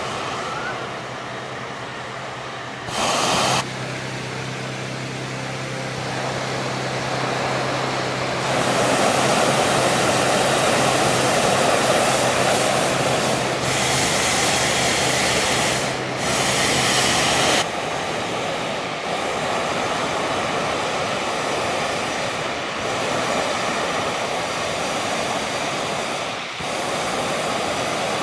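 Hot air balloon propane burners firing, a continuous roar with louder blasts about three seconds in and again from about fourteen to seventeen seconds in. A steady engine drone runs underneath through the first half.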